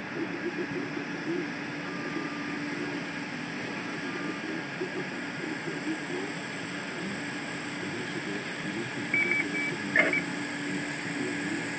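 Steady running noise from inside a moving vehicle: an even hiss over a low drone. A few short high beeps and a sharp click come near the end.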